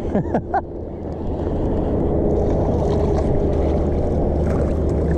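Steady wind buffeting the microphone, getting louder about two seconds in.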